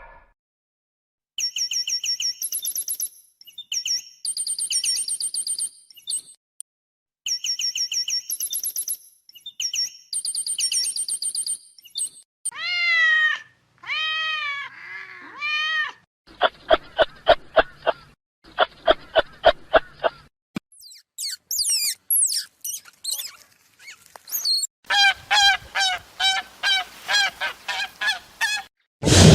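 A sequence of different animal calls, one short clip after another with brief gaps: high rapid chirping, played twice; arching pitched calls; a fast run of pulsed calls; thin squeaky glides; and a final run of quick repeated calls.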